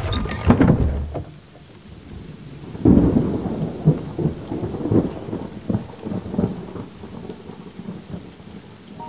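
Thunderstorm: steady rain with a rumble of thunder at the start and a second, louder thunderclap about three seconds in that rolls on for several seconds.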